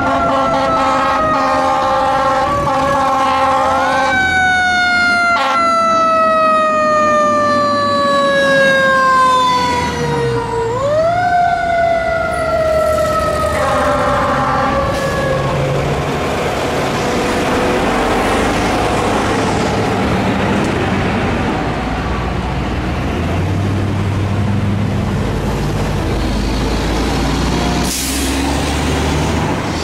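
Siren of a 2001 Pierce Dash 2000 fire engine wailing as the truck passes. Its pitch winds up, sinks slowly over several seconds and winds up again twice, then it dies out about sixteen seconds in. After that the truck's diesel engine and road traffic run on, with a short hiss near the end.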